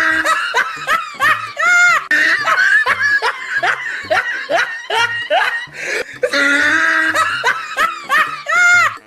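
Loud laughter: a rapid run of short, high laughs that comes round again late on.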